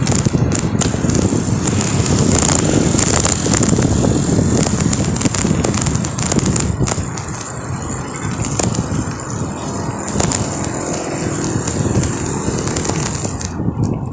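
Wind rushing over the microphone along with tyre and road noise from riding along a paved road among traffic, dropping off near the end.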